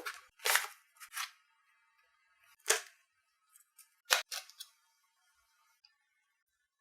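A handful of brief rustles and clicks from small packaging being handled and opened, spread over several seconds with quiet gaps between.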